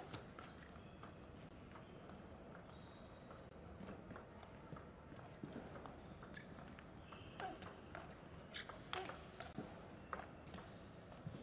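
Table tennis rally: the celluloid ball clicks sharply off the rubber-faced bats and the table in a quick irregular back-and-forth, with the hardest hit about three-quarters of the way through. Sports shoes give short high squeaks on the court floor as the players move.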